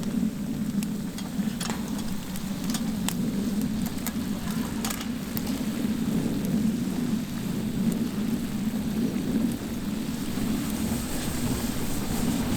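Wood fire crackling, with scattered sharp pops, most of them in the first half, over a steady low noise.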